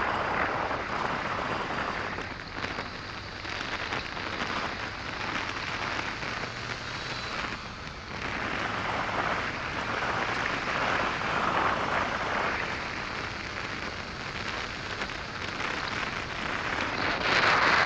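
Wind rushing through the windshield-less cab of a moving pickup, with road noise and the Duramax diesel's drone low underneath. The rush swells and fades in waves and is loudest near the end.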